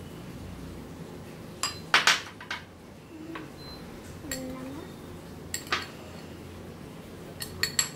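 A metal spoon and a small steel bowl clinking and scraping against a glass mixing bowl while salad ingredients are stirred and tipped in. The clinks are scattered, loudest about two seconds in, with a quick cluster near the end.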